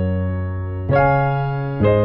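Background music: slow electric piano chords, a new chord struck about a second in and another near the end, each ringing and fading.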